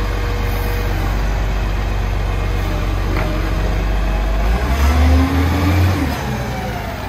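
Garbage truck's diesel engine running steadily, then revving up about four and a half seconds in and easing back down a second or so later.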